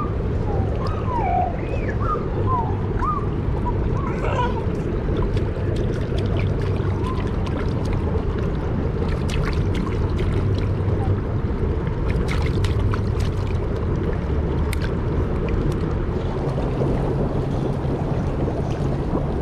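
Steady low rumble of wind buffeting the camera microphone. A few short, high squeaky glides come in the first few seconds, and scattered light clicks come near the middle.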